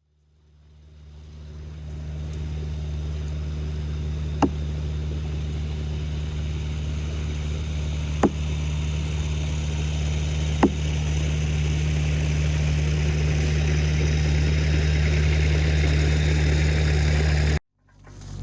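Chainsaw engine running at a steady speed while cutting through a hollow white oak log. It builds up over the first two seconds, with three sharp clicks along the way, and stops abruptly near the end.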